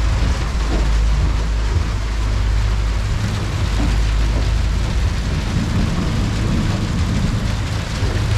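A boat under way in a storm: the steady rush of rain and wind over the low, constant drone of its twin outboard engines.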